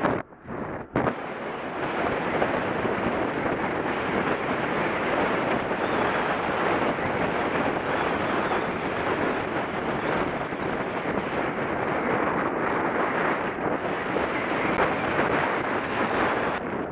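Wind rushing over the microphone of a cyclist's camera while riding at speed, a steady loud noise; it breaks off briefly about a second in.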